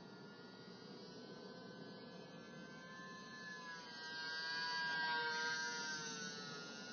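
Electric motor and propeller of a small RC model Icon A5 seaplane whining as it flies low past. The whine grows louder to a peak about five seconds in, and its pitch drops slightly as the plane passes.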